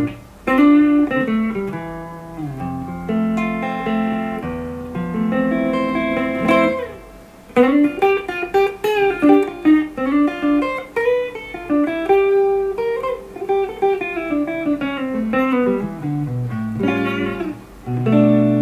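Fender Player Series Stratocaster electric guitar played through an amp with a clean tone on the neck pickup: melodic single-note phrases, sustained notes at first, then quicker runs after a short pause about seven seconds in.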